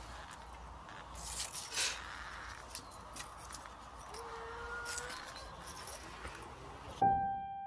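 Low background noise with scattered soft clicks and rustles, and a brief faint tone about four seconds in. Near the end a single piano note sounds as background music begins.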